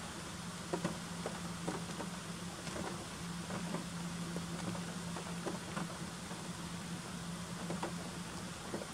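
Steady rain hiss with scattered, irregular drops tapping close by, over a steady low hum.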